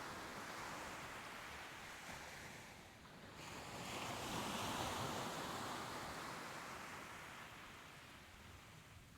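Soft ocean waves washing onto the shore: one wave ebbs away, and about three seconds in the next swells up and slowly recedes.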